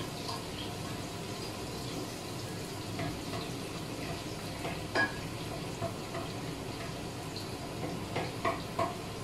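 A spatula stirring chicken adobo in a cooking pot, with scattered clicks and knocks against the pot: a sharp one about five seconds in and a quick run of three near the end. Underneath runs a steady hiss of frying and the kitchen exhaust fan.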